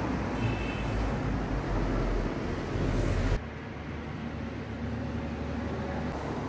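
Low, steady background rumble. It drops suddenly to a quieter hum about three and a half seconds in.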